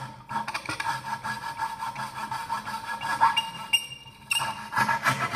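Coping saw sawing back and forth through a thin wooden board in quick rasping strokes, with a brief lull about four seconds in. The blade is kept moving as the saw is worked backwards out of the cut, which keeps the thin blade from snapping.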